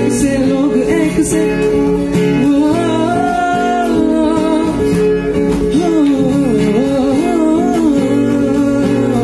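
Male voice singing over an acoustic guitar played live, its sustained chords ringing under the melody.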